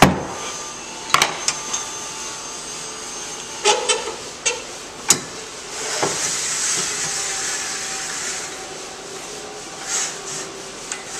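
Knocks and clatters of parts being pulled off and set down on a table saw, several sharp ones in the first five seconds, then a few seconds of hissing about halfway through and a couple of softer knocks near the end.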